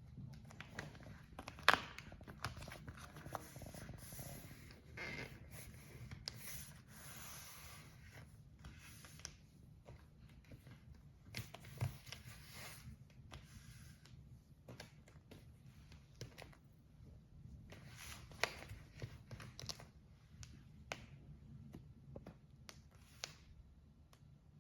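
Hands working a rubber fridge door seal: irregular rustling and rubbing with scattered light clicks, the sharpest about two seconds in.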